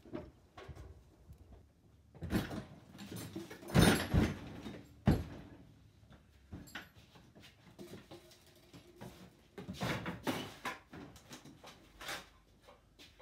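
Irregular knocks, clunks and rattles of gear being handled and moved about in a blacksmith's shop, loudest a few seconds in.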